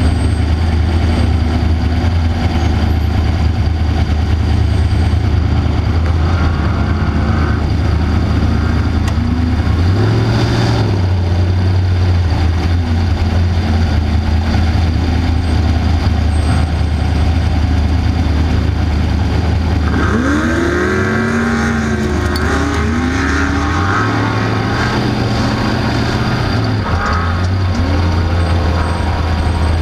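Off-road race car engine running with a steady low drone. It shifts pitch a couple of times and gives a few quick revs up and down about two-thirds of the way through.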